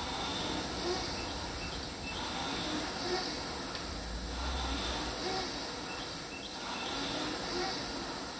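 Concept2 rowing machine's fan flywheel whooshing, swelling with each stroke about every two seconds.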